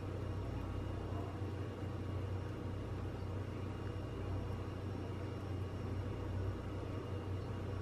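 A steady low hum with a faint constant hiss over it, unchanging throughout, with no distinct knocks or clicks.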